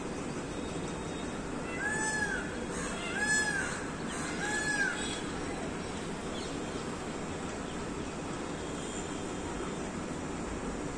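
Indian peafowl calling three times, about a second and a half apart, each call rising then falling in pitch, over a steady low background hum.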